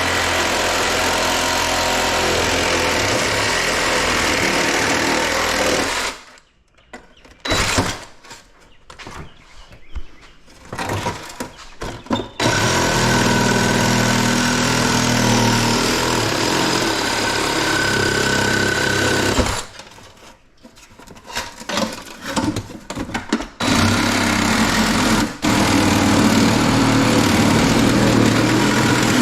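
Power tool running loudly in long spells, stopping twice for several seconds, with a few knocks and clatters in the pauses.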